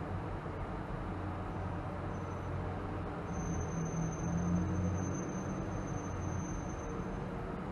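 Car driving through a highway tunnel, heard from inside the cabin: steady road and tyre noise with a low drone that swells in the middle. A faint high-pitched whine runs from about three seconds in until near the end.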